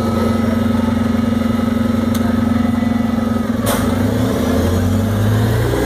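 Iveco 12 m natural-gas city bus idling at the stop with a steady hum. A short hiss of air comes about three and a half seconds in, then the engine note rises as the bus pulls away.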